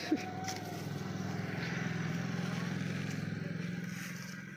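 A motor vehicle's engine passing by, growing louder to a peak midway and fading toward the end.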